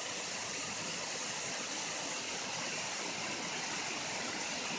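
Heavy rain pouring down in a thunderstorm, a steady even rush.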